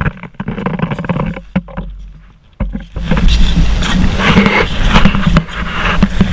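Wind buffeting the camera microphone, turning into a loud, steady rumble about three seconds in. Under it, crunching steps and an ice axe planted in firm snow.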